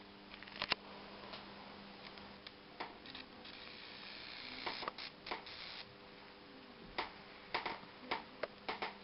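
High-voltage sparks snapping in sharp, irregular clicks where the flyback lead touches the fluorescent tube's end cap, with a stretch of hiss from about three and a half seconds in to about six, over a steady electrical hum from the running CRT television.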